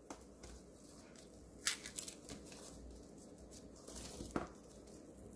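Faint rustling of garlic cloves and their dry papery skins as gloved hands break apart whole bulbs and sort the cloves, with a few brief crackles.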